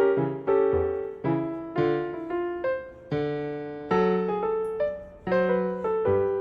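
Background music: a piano or electric piano melody with struck notes that fade, about two a second.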